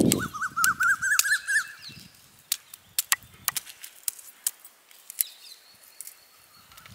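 Sharp, irregular cracking pops from raw cashew nuts roasting in their shells over an open fire, busiest in the first two seconds. A bird calls with a wavering trill during the first second and a half.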